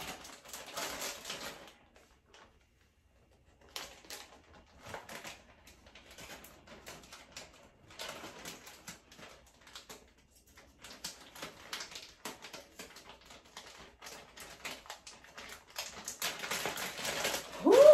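Clear plastic packaging bag crinkling and rustling in irregular bursts as it is handled and opened, with a short pause about two seconds in.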